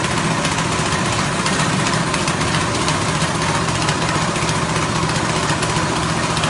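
Small 6.5 hp petrol engine running at a steady speed, driving a rice-husk grinding machine.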